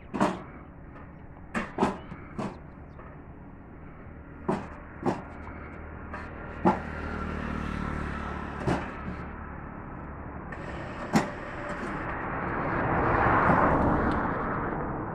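Scattered sharp knocks and clinks of building work on a brick house under construction, about nine in all, over a steady low hum. Near the end a broad rushing noise swells and fades.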